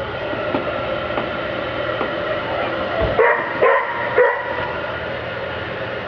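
A dog barking three short times, a little over three seconds in, over a steady machine hum.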